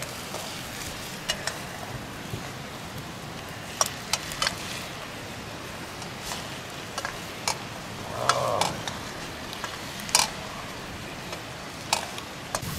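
Pieces of mouse meat frying in a black iron wok over a wood fire, a steady sizzle, while a metal ladle stirs them and taps the pan with occasional sharp clicks.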